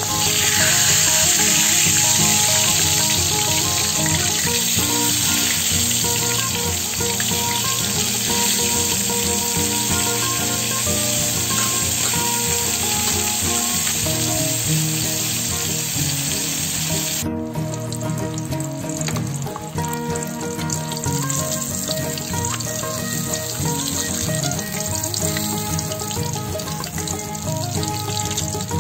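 A whole flour-coated tilapia frying in hot oil in a wok, a steady dense sizzle that is loudest just after the fish is turned over at the start and becomes softer and thinner after an abrupt drop more than halfway through. Background music plays underneath.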